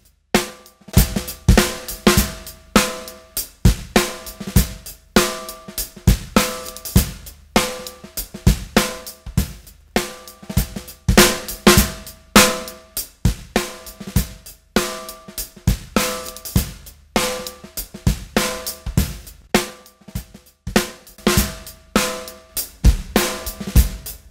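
Recorded drum kit playing a steady groove: punchy snare hits with ringing overtones, along with kick, hi-hat and cymbals, about two strikes a second. The snare is compressed through an 1176-style compressor with input and output transformers.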